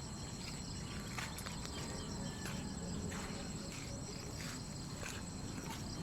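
Insects trilling steadily at a high pitch, with scattered light clicks and a low rumble underneath.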